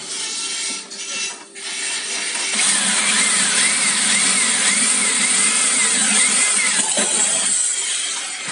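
Bosch electric drill boring through stainless steel. It runs in a few short bursts, then under steady load for about six seconds with a wavering high whine from the cut, and winds down near the end.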